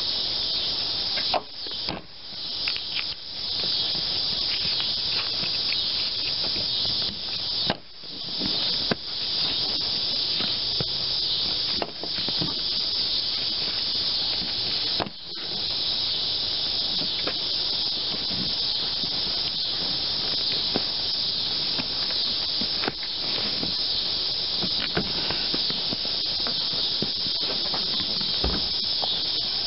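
A steady, high-pitched insect chorus of crickets, with a few sharp clicks and rustles from a seatbelt buckle and its webbing being handled.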